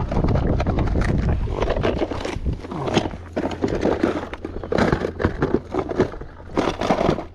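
A flathead thrashing with hard head shakes on the kayak: a rapid, irregular run of knocks, rattles and scrapes against the hull.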